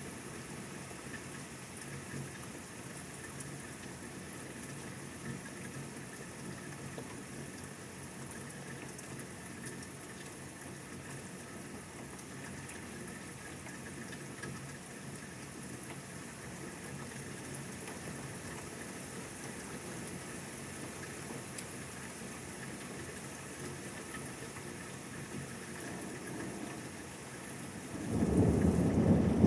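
Steady rain falling through a thunderstorm, and near the end a sudden loud peal of low thunder that carries on.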